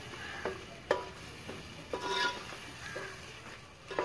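Metal spoon stirring masala in a metal cooking pot. It knocks and scrapes against the pot's side about once a second, and each knock rings briefly.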